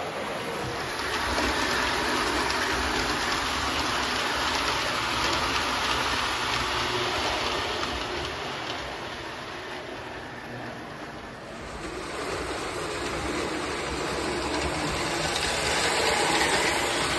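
O-scale Lionel model freight train rolling across a #317 truss bridge on three-rail track: a steady rumble and rattle of wheels on rail. The rumble builds about a second in, fades around ten seconds in, and swells again near the end as a train passes overhead.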